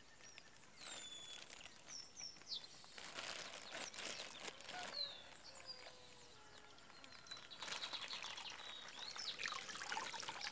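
Water splashing and trickling as a plastic bag of fish fingerlings is tipped and swirled at the edge of a pond, in a few separate spells, with birds chirping now and then.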